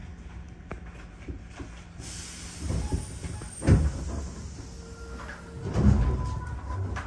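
Commuter electric train starting off from a station. A burst of air hiss about two seconds in fades away, two heavy clunks follow a couple of seconds apart, and a faint steady whine sets in near the end as the train gets moving.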